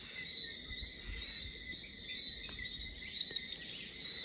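A steady chorus of insects ringing at two even high pitches, with short bird chirps over it and a few soft low thumps about a second in.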